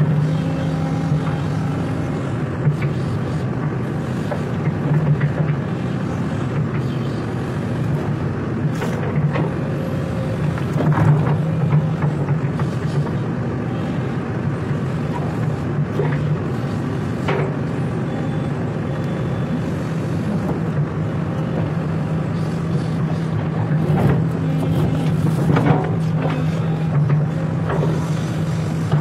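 SANY hydraulic excavator's diesel engine running steadily under working load as the boom and bucket move, with a few sharp metallic clanks scattered through.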